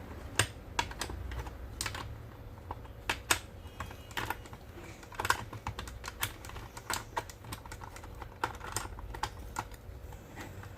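Irregular small clicks and taps from hands and tools working on a car amplifier's metal case and circuit board as it is taken apart, a few a second and unevenly spaced.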